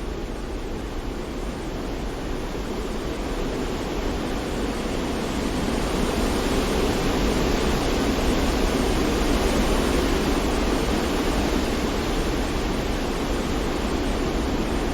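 Steady rushing noise of wind and water, as heard while windsurfing. It slowly builds louder toward the middle, then eases a little.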